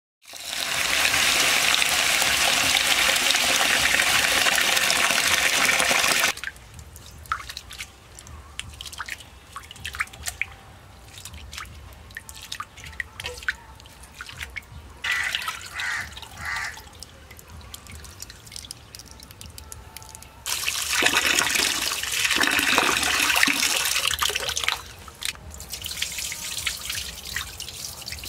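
Water pouring into a steel bowl of roasted mung dal for about six seconds, then a hand swishing and rubbing the lentils in the water with small splashes and clicks. About twenty seconds in, water pours again for a few seconds, and the washing ends with quieter sloshing as the bowl is tipped.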